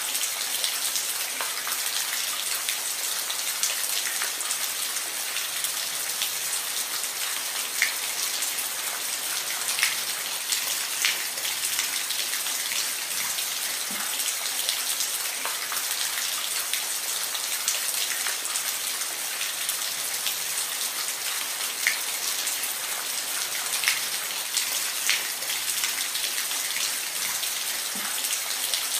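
Steady rain falling, an even hiss with individual raindrops ticking now and then on a surface.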